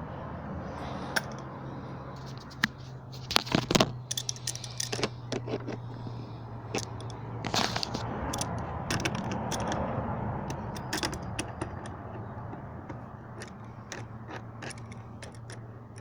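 Metal tools and parts clinking and scraping during work on a car's engine bay: a quick cluster of sharp clicks about three and a half seconds in, then scattered clicks and scrapes, over a steady low hum.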